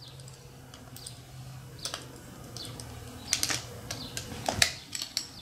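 Small sharp clicks and scrapes of a screwdriver working the screw of a plastic toy remote control's battery cover, a few scattered ticks with a faint low hum underneath.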